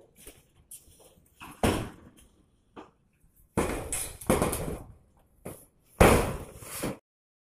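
Bangs and clatter from old corrugated metal roofing sheets being dismantled, in a handful of separate bursts, the loudest near the end, after which the sound cuts off abruptly.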